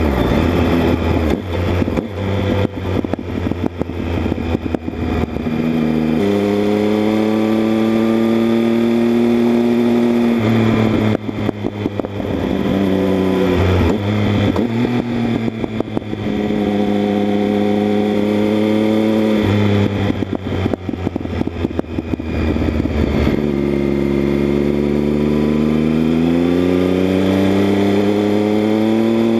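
Triumph Speed Triple 1050's three-cylinder engine through an aftermarket Arrow exhaust, heard from low beside the rear wheel while riding. Three times the exhaust note climbs steadily in pitch as the bike pulls, and between the pulls the sound turns rough and broken with short crackles.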